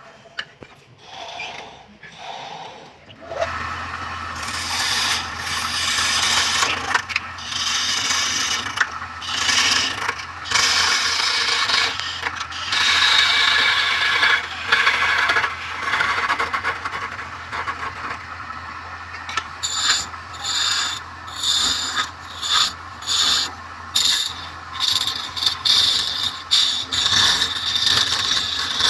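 Wood lathe running with a steady motor hum while a tool scrapes and rasps against the spinning wood. From about two-thirds in, the scraping comes in short regular strokes, about one a second.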